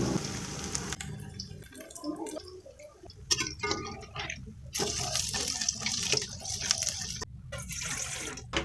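Water running and splashing in a kitchen, as at a tap or sink, with scattered light knocks and clatter; the flow stops abruptly about seven seconds in.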